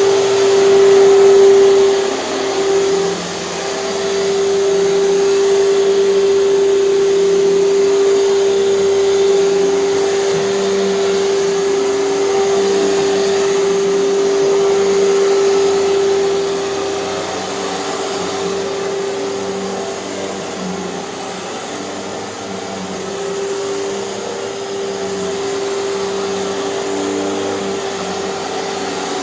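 Hoover canister vacuum cleaner running with its power nozzle, a steady motor whine over airflow noise. It is a little louder in the first couple of seconds and eases off somewhat about two-thirds of the way in.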